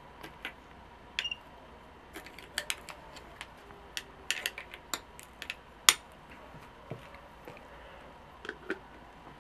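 Metal spoon clinking and tapping against the glass jar as salt is spooned in over apricot halves: a scatter of sharp, irregular clicks, with one louder clink about six seconds in.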